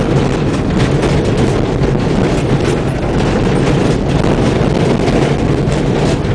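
Old Ford Escort van driven hard over a rough, unsurfaced track: the engine runs steadily under load beneath a constant din of tyres and the body and suspension rattling and knocking over the bumps, heard from inside the cab.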